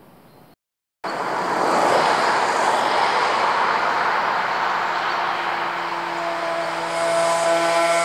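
Two cars passing close by, mostly tyre and road noise, after a brief silent cut. About six seconds in, a steady engine note grows through it: the Suzuki K50's 50 cc two-stroke single approaching.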